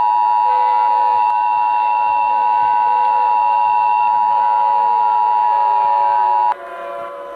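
Emergency Alert System two-tone attention signal: a loud, steady dual-pitched electronic tone that sounds the start of an emergency alert. It cuts off suddenly near the end, leaving a quieter sound with sliding pitches.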